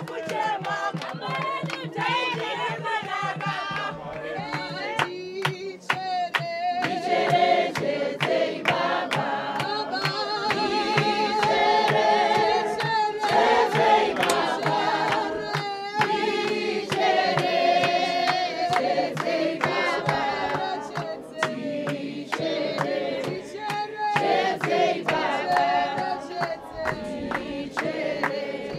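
A group of voices singing a song together in harmony, in long held phrases, with frequent sharp clicks through it.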